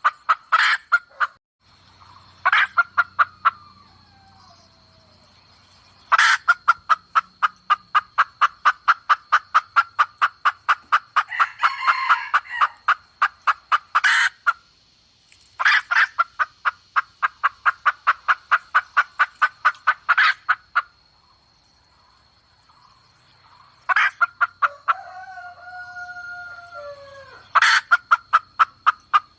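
Red junglefowl hen (forest hen) clucking in long rapid series, about four clucks a second, broken by short pauses, with a few louder sharp calls and some brief gliding notes. This is a calling hen used as a lure for wild junglefowl.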